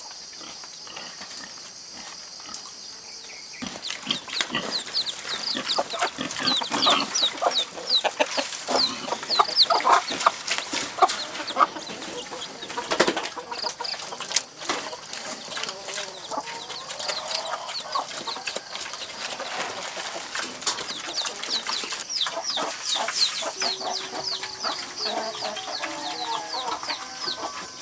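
Chickens clucking, with many short, falling high-pitched cheeps, over black pigs feeding at a trough with scattered clicks and knocks.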